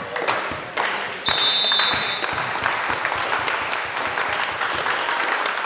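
Spectators clapping and cheering in a gymnasium during a volleyball match, a steady patter of many claps, with a brief high-pitched tone about a second in.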